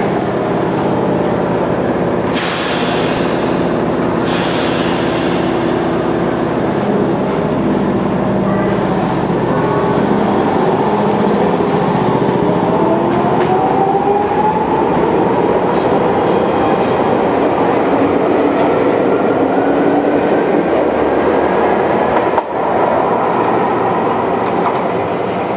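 Chichibu Railway 7000 series electric train (ex-Tokyu 8500 series) pulling out of a station. There are two short hisses about two and four seconds in, then the traction motors whine, rising steadily in pitch as it accelerates, over the running noise of the wheels on the rails.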